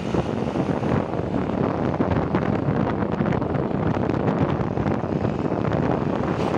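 Wind buffeting the microphone of a moving motorcycle, over the steady running of its engine.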